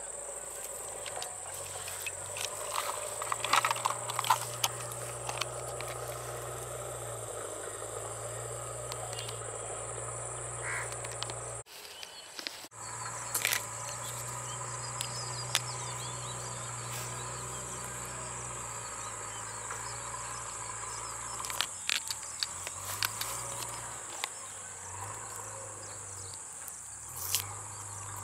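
A steady, high-pitched insect drone, with occasional sharp clicks and rustles from objects being handled close by. The sound cuts out briefly about twelve seconds in.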